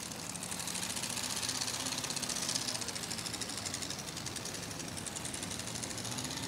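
Two-wheel-drive pulling truck's racing engine held at high revs under full load as it drags a weight-transfer sled, a steady, rapid engine note.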